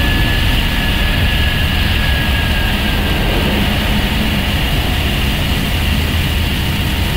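Steady engine and airflow noise inside the flight deck of an Airbus A321neo in its initial climb, engines still at flex takeoff thrust. A high whine holds steady throughout, and a fainter, lower whine fades out about three seconds in.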